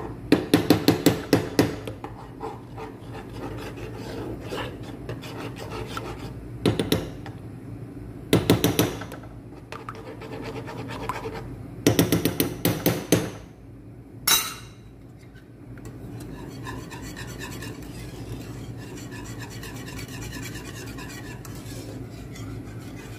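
Wire whisk scraping against a pan while béchamel sauce is whisked, in several bursts of quick strokes with pauses between. There is a single sharp knock about two-thirds of the way in, after which the strokes stop.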